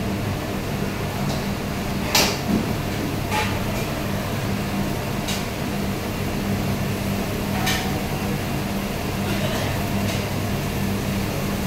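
Steady hum of a commercial kitchen, with lit gas burners under the pans, broken by about four sharp metal clinks of stainless-steel pans and a tray as spaghetti is tipped into a sauté pan.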